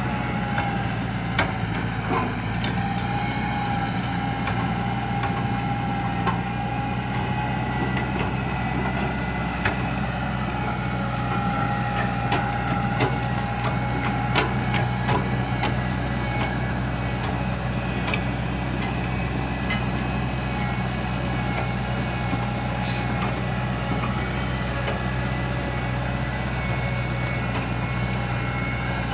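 Excavator's diesel engine running steadily, with scattered short clicks and knocks.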